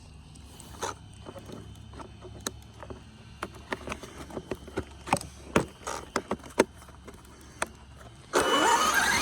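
Scattered light clicks and taps over a low hum, then about eight seconds in the electric brushless motor and tyres of a Traxxas Maxx RC monster truck start up with a sudden loud rush as it takes off.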